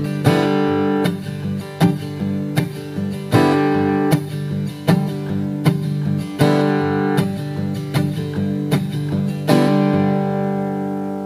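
Acoustic guitar strummed in a steady rhythm, about one strum every three-quarters of a second, as the song's instrumental close. A final chord a little before the end is left to ring and fade.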